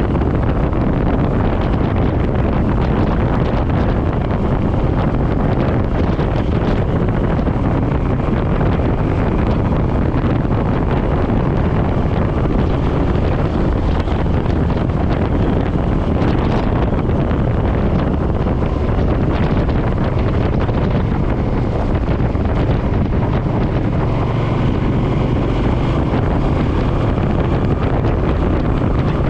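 Steady wind rush on the GoPro microphone while riding, over the low running of the Suzuki M50's V-twin engine and road noise.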